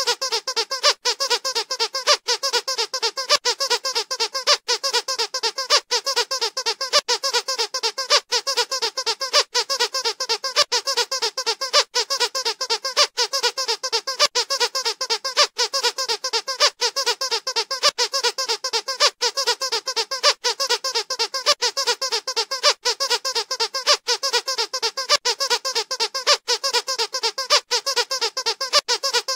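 Squeaky dog toys squeezed over and over, giving a rapid, unbroken run of high squeaks, several a second.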